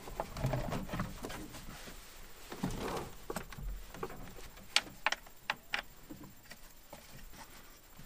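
Scattered light clicks and knocks of plastic and metal, with rustling, as an air intake duct is fitted back into an engine bay by hand; a cluster of sharper clicks comes about five seconds in.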